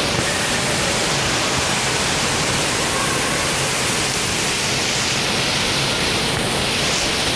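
Steady rushing and splashing of water from an indoor water park's fountains and splash-pad jets, a constant even wash of noise, with faint distant voices now and then.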